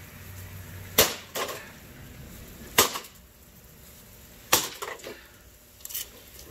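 Axe blows smashing into a bread maker's casing: three hard strikes about two seconds apart, each followed by a short clatter of breaking parts, then a lighter knock near the end.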